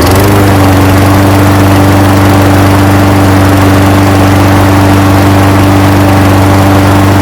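Toro walk-behind lawn mower's 190 cc single-cylinder engine running loud and steady at an even speed, having just caught on the first pull after being repaired from a no-start condition.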